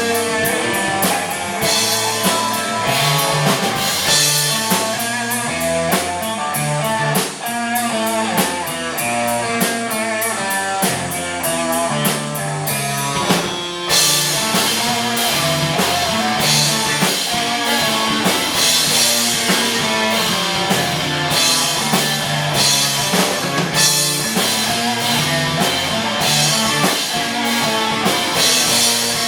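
Live rock band playing an instrumental passage with full drum kit and guitars, no singing. The drumming and guitar texture change about halfway through.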